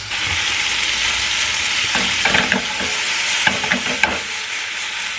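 Green beans sizzling hard in a hot oiled frying pan over a gas flame. The pan is being shaken, and the beans rattle and scrape, with a few short knocks around the middle. The heat is high enough that it needs turning down so the beans don't cook too fast.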